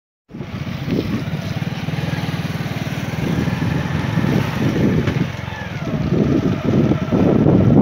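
Small motorcycle engine running close by as it rides along, with rougher wind rumble on the microphone building near the end.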